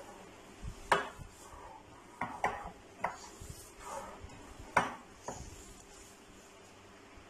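Hands kneading raw minced beef kabab mixture in a glass bowl: soft squishing broken by about six sharp knocks of the glass bowl, the loudest about a second in.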